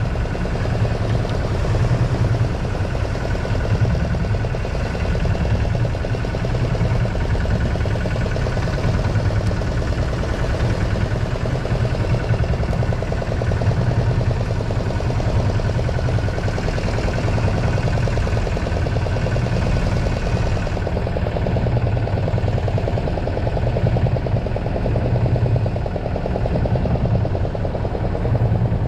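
Fishing boat's engine running steadily, a continuous low drone with an even pulse.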